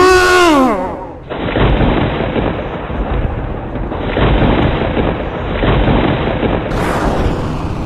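A loud cry that rises and then falls in pitch. Then, from about a second in, rumbling explosion-like booms from battle sound effects, swelling every second or so, as the fight begins.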